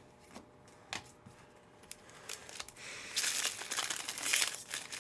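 A few faint clicks, then from about two seconds in a foil trading-card pack wrapper crinkling as it is handled and torn open, loudest near the end.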